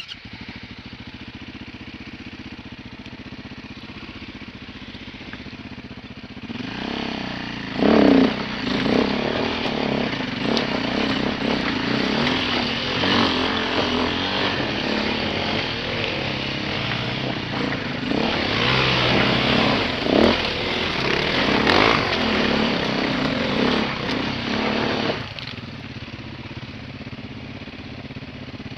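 Off-road dirt bike engine running steadily at low revs, then revved hard and unevenly from about six seconds in as the bike climbs a rocky creek bed. It drops back to a lower, steady note near the end.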